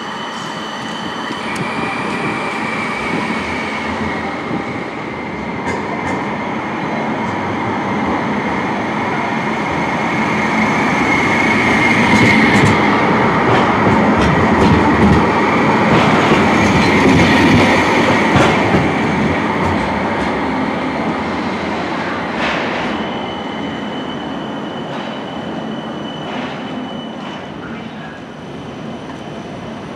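West Midlands Metro CAF Urbos 3 tram running past close by, a steady high whine over the rumble of its wheels on the rails, with scattered clicks as it crosses joints. It is loudest as it passes about halfway through, then fades as it moves off.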